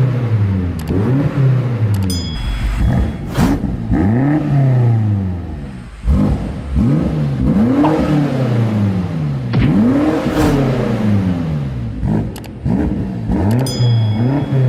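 BMW X5 M Competition's 4.4-litre twin-turbo V8 revving again and again, the pitch climbing quickly and sinking back each time, with a few sharp cracks between the revs.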